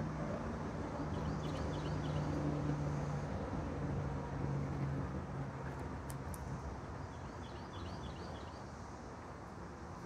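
Outdoor rumble with a steady low hum that swells and then fades after about five seconds. A small bird chirps in two short runs, one about a second and a half in and another past seven seconds.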